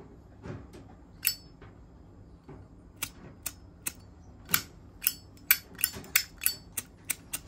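Zippo lighter's hinged chrome lid being flipped open and snapped shut over and over: about a dozen sharp metallic clicks, mostly in the second half. The lid lacks the usual Zippo clink when opened.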